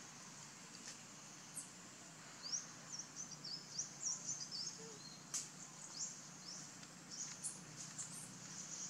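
Outdoor forest ambience: a quick run of short, high-pitched rising chirps about two and a half to four and a half seconds in, with a few single chirps and faint clicks, over a steady high hiss.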